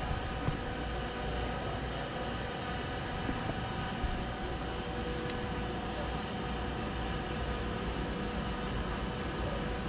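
Steady mechanical running noise: a low rumble with a constant hum of a couple of fixed tones, unchanging throughout.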